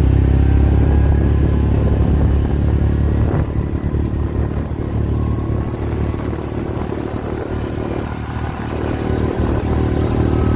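A vehicle's engine running steadily under way, with some rattle; it eases off a little partway through, then picks up again near the end.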